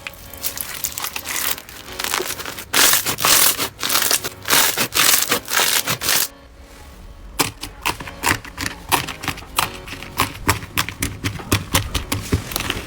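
Slime being squeezed and pressed by hand: a run of loud crunching squishes, a short lull about six seconds in, then quick sharp clicks and pops, several a second.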